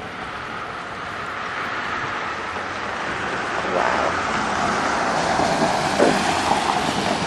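Floodwater gushing out and running in a steady rush, getting louder over the seconds.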